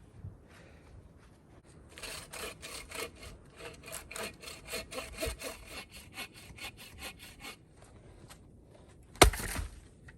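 Hand saw cutting through a piece of wood in quick, even back-and-forth strokes for about five seconds. Near the end comes one loud, sharp crack or knock of wood.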